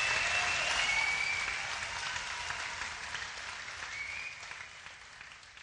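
Audience applause with a few high sliding tones, fading out steadily to near silence at the close of the track.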